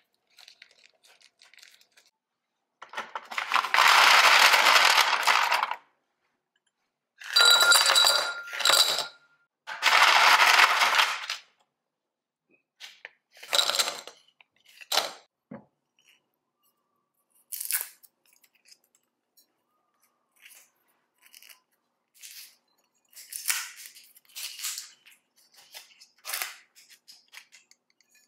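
Ice cubes poured from a bag into tall glasses in three loud pours, with some ringing from the glass. These are followed by scattered short clinks and clicks of ice settling and glassware and bottles being handled.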